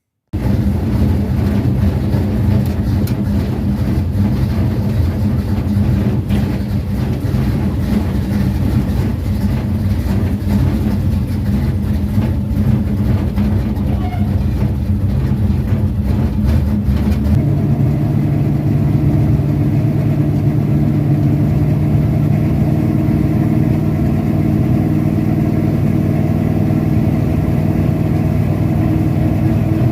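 Carbureted high-compression race car engine running steadily, with a clear low drone; a little over halfway through its pitch steps up and holds at the higher speed.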